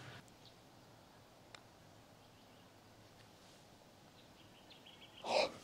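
Quiet outdoor ambience with faint bird chirps about four and a half seconds in. There is a light tick about a second and a half in, and a brief louder noise just before the end.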